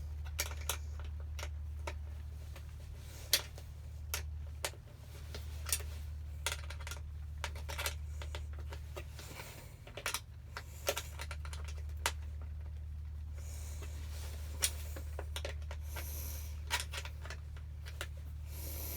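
Scattered small metallic clicks and taps of a nut and bolt being fitted by hand on a scooter, over a steady low hum.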